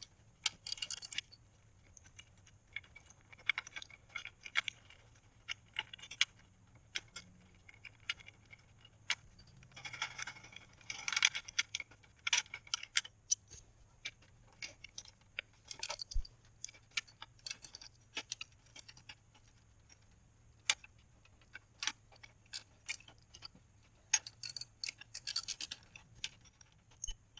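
Hand ratchet clicking in short runs as 10 mm radiator mounting bolts are backed out, with scattered metal clinks from the tools between runs.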